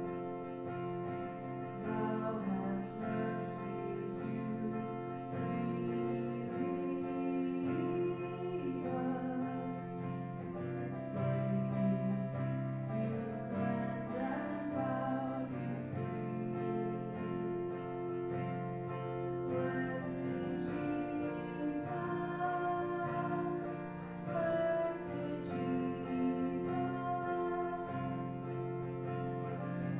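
Church music led by guitar over steady held chords, with no clear sung words.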